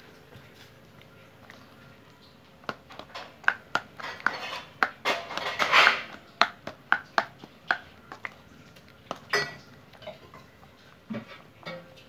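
Steel spoon stirring wet chickpea masala in a stainless steel bowl, clinking and scraping against the bowl many times. It starts about three seconds in, comes thickest a few seconds later, and thins out near the end.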